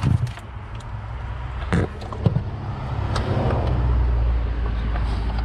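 Low, steady vehicle rumble that grows louder about halfway through, with a few sharp clicks and knocks from handling plastic wiring connectors.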